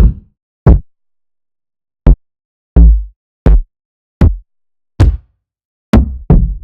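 Single kick-drum samples from a trap drum kit, played one at a time with short silences between: about nine hits, each a sharp attack with a deep low end. One hit near the middle rings out longer.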